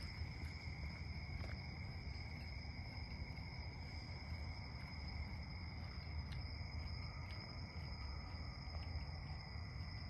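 Night insects chirring steadily in two constant high-pitched bands, over a low rumble from the handheld microphone being carried, with a few faint ticks in the second half.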